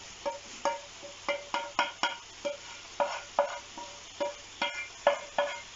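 Wooden spoon tapping and scraping against metal pans as wild asparagus is scraped from one pan into another. The taps come quickly, about three a second, each with a short metallic ring.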